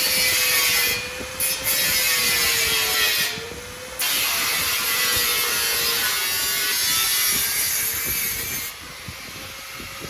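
Power sander or grinder working a car body panel: a steady motor whine with an abrasive hiss that drops out twice as the tool is lifted, then stops near the end while the motor winds down.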